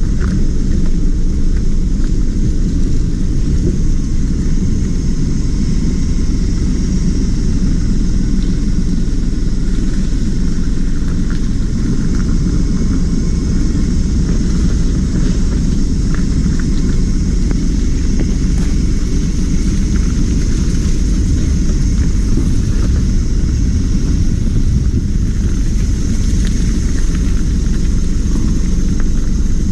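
Steady low rumble of a running engine, even and unbroken, with no clear revving.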